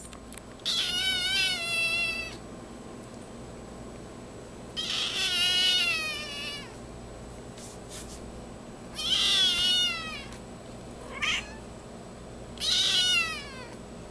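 Small female kitten crying with loud, drawn-out meows, the screams of the title: four long cries of one to two seconds each and one short cry just before the last, the later ones falling in pitch at the end.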